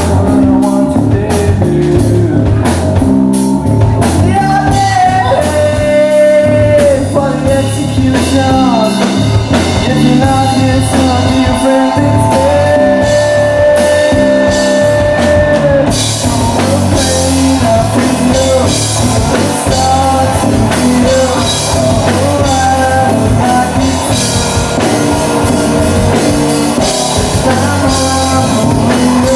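Rock band playing live: drum kit, bass and guitar, with a singer holding long notes. About halfway through, the cymbals come in and keep washing over the rest.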